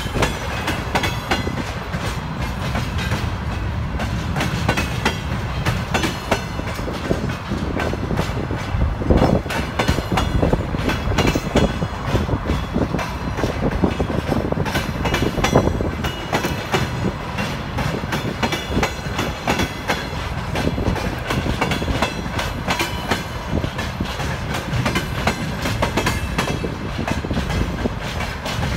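Wagons of a freight train, empty flatcars, rolling past close by: their wheels clatter over the rail joints in a dense, steady clickety-clack over a constant rumble.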